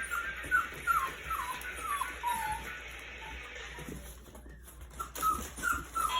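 Four-week-old puppies whimpering: a run of short, high, falling whines about two a second, a pause, then a few more near the end.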